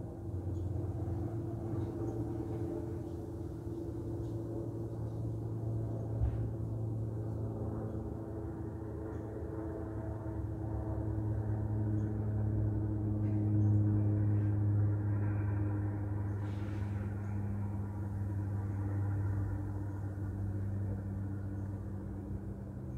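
A low, steady mechanical hum made of several held tones, growing a little louder toward the middle and easing off again, with a few faint clicks.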